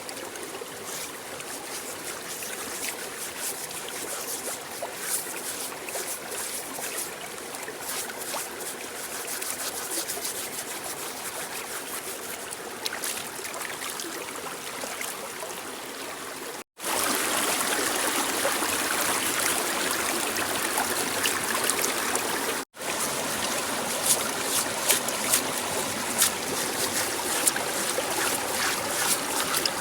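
Water running and trickling, with small clicks and knocks, as the eel is washed. It gets louder after a brief break about two-thirds of the way in.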